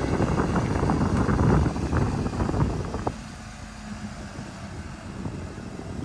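Heavy diesel machinery working hard, loud and rough, then dropping suddenly about three seconds in to a quieter steady running.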